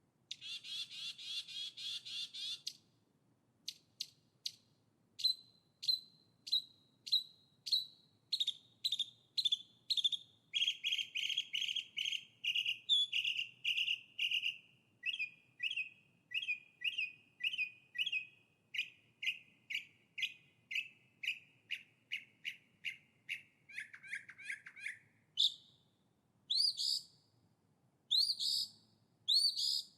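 A songbird singing: a short buzzy trill, then a long run of repeated sharp whistled notes that come faster and drop a little in pitch, ending with a few louder swooping phrases.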